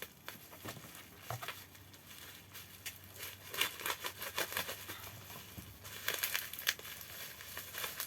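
Plastic packaging crinkling and rustling as it is handled and pulled open, in irregular spells that are busiest a few seconds in and again near the end.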